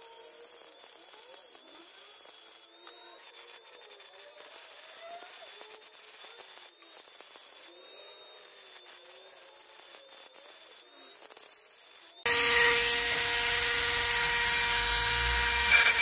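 Handheld rotary tool with a small burr grinding into a large clam shell. For about twelve seconds it is faint, its whine wavering in pitch as the burr bites and eases; then it jumps suddenly to a much louder, steady grinding whine that cuts off at the very end.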